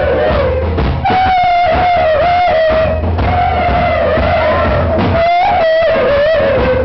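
Live rock band playing: electric guitar and drum kit over a steady bass, with a lead melody line that bends up and down in pitch.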